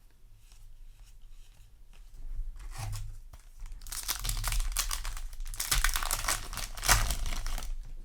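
A foil Yu-Gi-Oh! booster pack wrapper being torn open and crinkled by hand: light rustling at first, then a dense crackling tear from about two and a half seconds in, loudest over the last four seconds.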